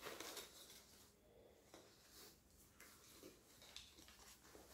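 Near silence with faint, scattered rustling of a crepe maxi dress and its pink plastic wrapping being handled.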